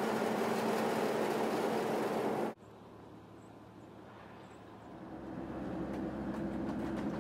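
Steady rumble of a ferry's engine with wind on the microphone, cut off abruptly about two and a half seconds in. A short quieter stretch follows, then the engine and road noise of a moving car, heard from inside the cabin, swell in.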